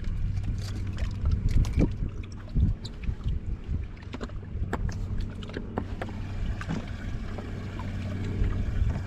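Knocks and clunks of handling inside a bass fishing boat, heaviest in the first few seconds, over a steady low hum from the boat.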